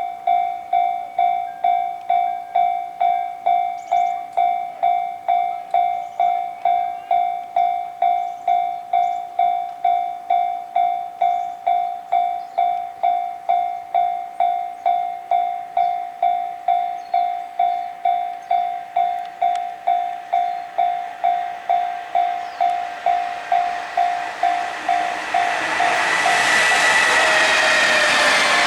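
Japanese level-crossing warning bell ringing steadily, about two strikes a second. About 25 seconds in, a train passes the crossing and its noise swells up over the bell.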